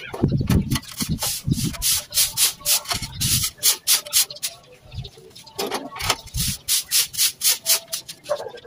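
Soft grass broom sweeping sun-dried unhusked rice grains across a concrete road: quick, repeated brushing strokes, about three a second, with intermittent low rumbles.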